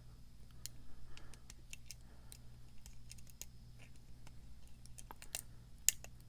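Lock pick working the pins of a pin-tumbler challenge lock under light tension: faint, irregular small clicks and ticks, with a few sharper clicks near the end. A low steady hum runs underneath.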